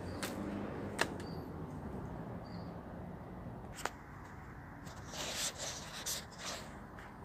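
Handling noise from the person moving with the camera: sharp clicks about a quarter second, one second and four seconds in, then a stretch of rustling about five seconds in, over a steady low rumble.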